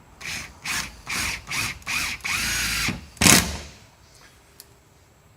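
Power drill driving 1-inch screws into fiberglass, in several short trigger pulls, then a longer run and a final loudest burst that stops a little under four seconds in.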